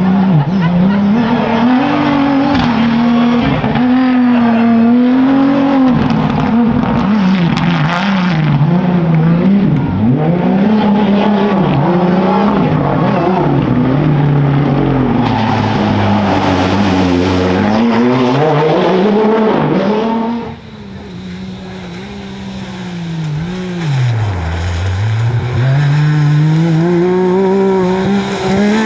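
Off-road rally vehicles racing on dirt, engines revving hard, the pitch climbing and falling again and again through gear changes and lifts. About two-thirds of the way through the sound drops suddenly to a quieter engine, which dips once and then climbs back up.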